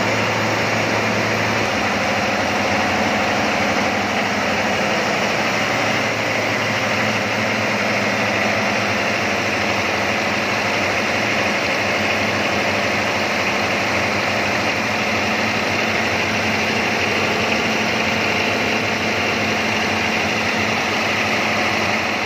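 Caterpillar 3508 V8 diesel engine running steadily at about 1,500 rpm.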